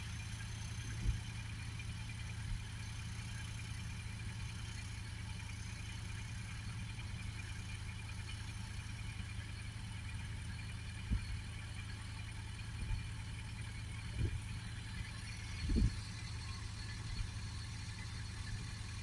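A car engine idling steadily, warming up after a cold start in the frost, with a few short dull thumps over it.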